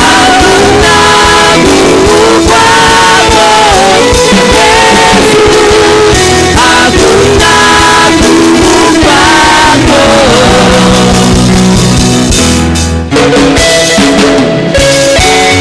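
Church worship band playing loudly: a voice sings over drums, guitar and bass, then the singing stops about ten seconds in and the band plays on.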